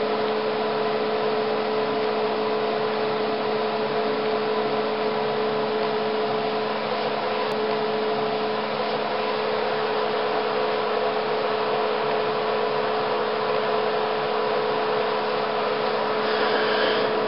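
Caleva Mini-Mixer's electric drive running steadily as its blades work a viscous liquid: an even mechanical hum with a constant tone.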